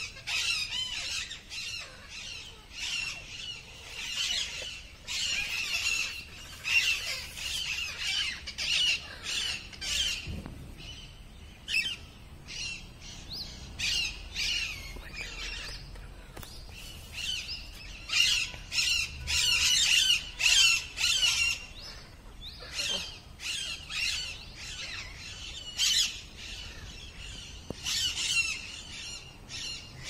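A flock of parrots calling: many short, high-pitched screeches one after another, loudest in a burst about two-thirds of the way through.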